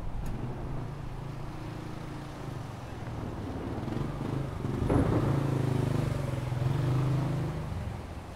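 A motor vehicle's engine running as it passes on the road, its low hum swelling to its loudest about five seconds in and then fading.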